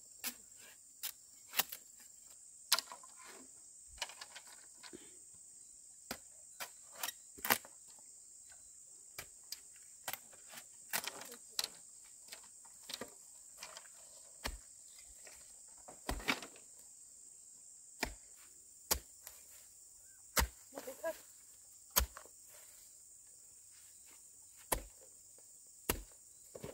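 A steady high-pitched insect drone over irregular sharp knocks of a tool striking wood or bamboo, about one every second or two.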